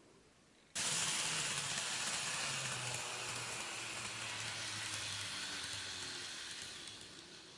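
N-gauge model trains of Keihan cars running into the station: a sudden rush of wheel-on-rail hiss and rattle under a motor hum that drops in pitch as they slow to a stop, fading out near the end.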